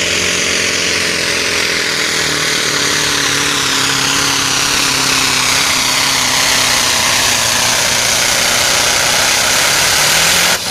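Scania 142H pulling truck's diesel engine at full throttle, dragging a weight sled, with a high whine that falls slowly in pitch. The sound drops away suddenly near the end as the pull finishes.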